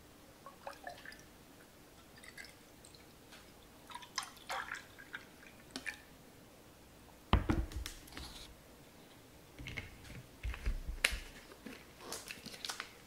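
Mango juice poured from a plastic bottle into a glass, trickling and splashing faintly for the first several seconds. A loud thud on the table comes about seven seconds in, then a run of sharp clicks and rustles as the bottle's cap is screwed back on.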